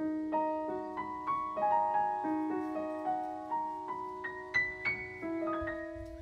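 Background music: a solo piano playing a gentle melody of single struck notes, about three a second, settling on a long note near the end that rings and fades.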